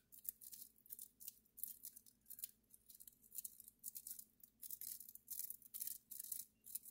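Felt-tip marker writing on plastic wrap stretched over a wooden panel: faint, quick scratchy strokes, one after another.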